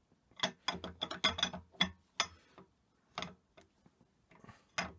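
Metal parts of an Index 40H milling machine clicking and clinking as they are handled and fitted back together by hand: a quick, irregular run of sharp clicks in the first two seconds, then a few single clicks.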